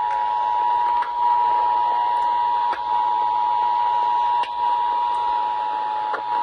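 Emergency Alert System two-tone attention signal: two steady tones sounding together and held, received over the radio with faint clicks about every second and a half. It announces an incoming alert, here a severe thunderstorm warning.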